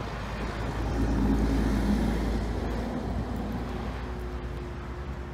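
Wind buffeting the microphone: a low, rumbling rush that swells about a second in and eases off after about three seconds.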